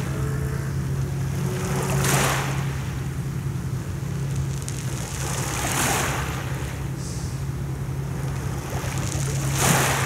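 Small sea waves washing onto a pebble shore: three surges, each a hiss that swells and drains away, about four seconds apart. A steady low hum runs underneath.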